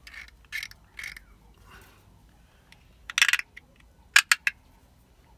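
A small metal tool scraping the inside of an aluminium battery terminal clamp to strip its powder coating for a good electrical contact. There are a few short scrapes at first, then a louder, longer scrape about three seconds in and three quick, sharp scrapes just after.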